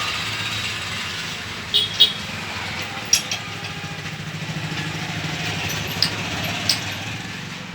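Motorcycle engine running steadily at idle, with half a dozen short, sharp clicks over it.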